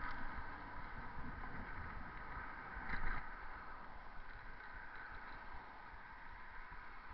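Wind buffeting an action camera's microphone on a moving bicycle, with road traffic noise; a brief louder rush about three seconds in.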